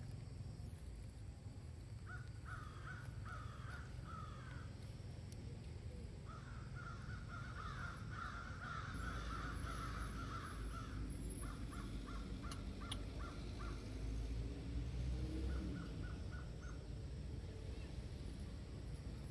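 Crows cawing in several runs of calls, including a quick series of short caws a little past the middle, over a low rumble.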